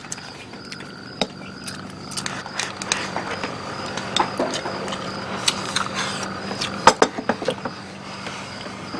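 Chopsticks clicking and tapping against ceramic bowls during a meal, many small sharp clicks at an uneven pace, with crickets chirping steadily behind.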